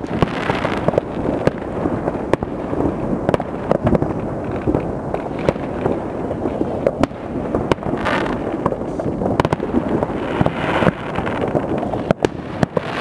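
Many fireworks and firecrackers going off in the distance all at once: a steady crackling din broken by frequent sharp bangs. There are a few brief hissing bursts.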